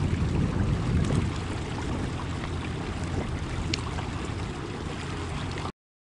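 Wind buffeting the microphone over water lapping against a small fishing boat on open water, a steady rushing noise strongest in the low end; it cuts off abruptly near the end.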